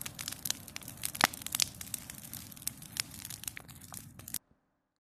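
Bonfire of branch trimmings crackling, with irregular sharp pops, one louder pop a little over a second in, over a low steady rumble; the sound cuts off abruptly after about four and a half seconds.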